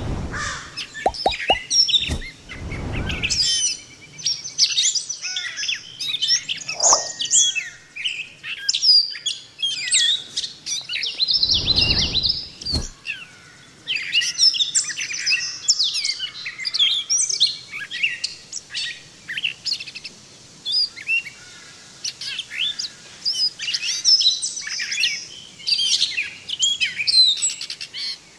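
Gray catbird singing a long, jumbled run of short, varied phrases, each one different, broken by brief pauses. A couple of brief low rumbles come in early and about halfway through.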